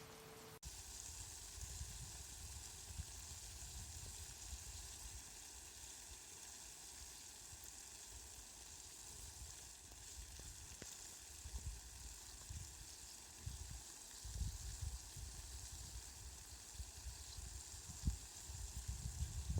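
Steady rain falling as a fine, even hiss, with a low rumble that comes and goes and grows stronger near the end.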